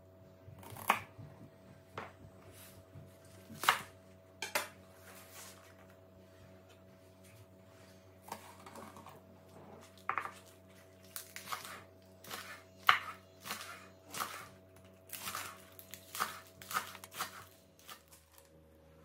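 Chef's knife chopping green onions on a wooden cutting board: irregular knife strikes against the board, a few sharp and loud, coming faster and closer together in the second half.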